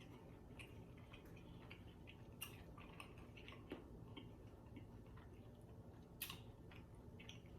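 Near silence with faint chewing and a few soft, sharp mouth clicks scattered through.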